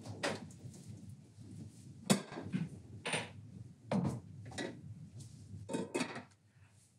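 A stainless steel cooking pot clinking and knocking on a kitchen counter as it is handled and dried, several separate knocks, some ringing briefly.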